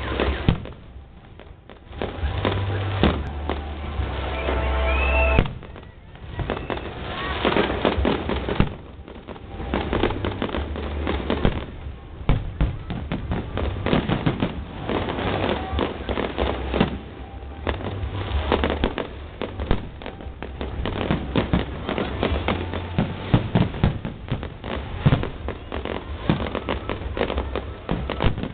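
Fireworks display: a dense, continuous run of bangs and crackling bursts, with a brief whistle about five seconds in.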